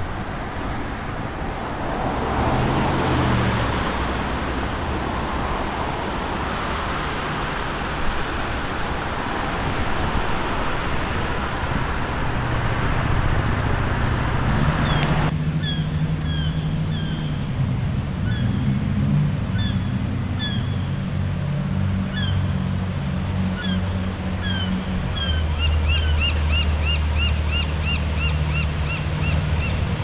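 Heavy surf breaking on rocks, a steady rushing wash. About halfway through the sound cuts to a lower, quieter scene: a boat engine drones low with changes in pitch, and short high chirps come and go, with a quick run of them near the end.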